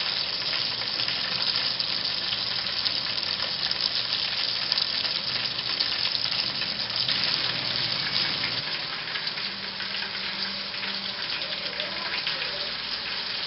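Breaded chicken pieces deep-frying in hot oil in a pot, a steady, dense crackling sizzle. It eases slightly from about nine seconds in.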